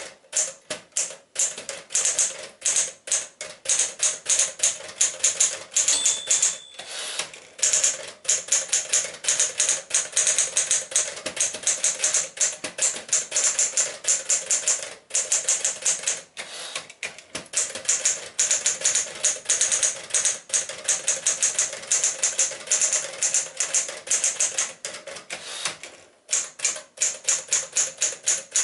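Keys of a 1967 Smith-Corona Caravelle 10 manual portable typewriter clacking in quick runs of typing, with short pauses between runs. A brief bell-like ring sounds about six seconds in.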